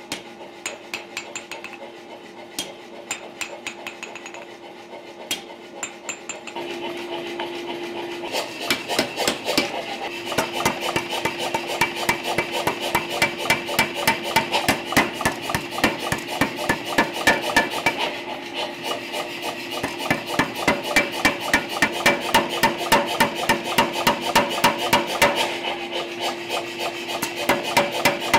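Power hammer drawing out a red-hot knife tang: a steady motor hum, with a few light clicks at first, then from about six seconds in a fast, even run of blows, about four a second, on the hot steel.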